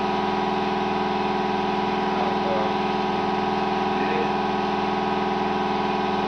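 A motor or machine running at a steady speed, giving a constant hum with a fine, even pulse.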